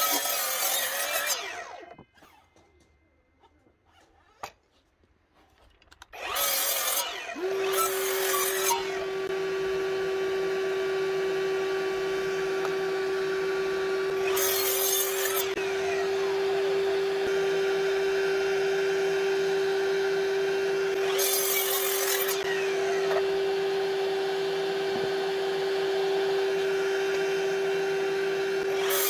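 Cordless mitre saw cutting thick timber in several short loud bursts, a few seconds apart. The first comes at the start, then a quiet gap, and a steady motor whine runs under the later cuts from about seven seconds in.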